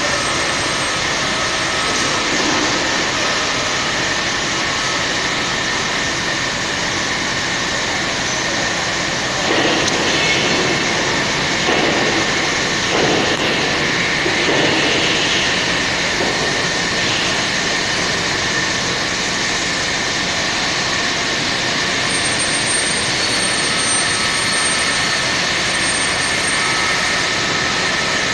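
350-ton double-head horizontal hydraulic wheelset press running: a steady machine drone with a constant high whine. A few louder surges come roughly a third to halfway through.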